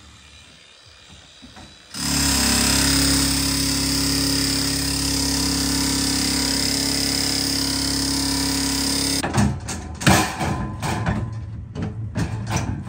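Electric demolition hammer starting about two seconds in and running steadily, its chisel driven into the steel casing of an ATM safe; from about nine seconds it turns choppy, in short irregular bursts.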